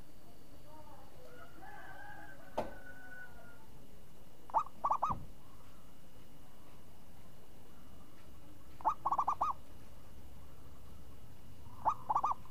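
Zebra dove (perkutut) cooing three times, each phrase a short note followed by a quick run of three or four notes. A single click about two and a half seconds in.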